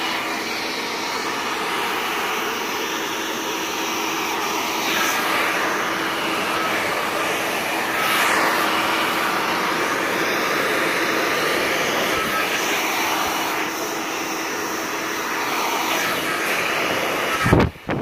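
A powerful professional hand-held hair dryer, a 3500 turbo model, blowing steadily at full power while a section of hair is brushed straight. Near the end there is a brief loud gust, and then the sound dips.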